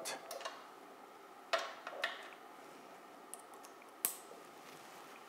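Faint handling sounds of plastic gas tubing and fittings being connected at an anesthesia machine's fresh gas outlet: a few light clicks and knocks, the sharpest about four seconds in.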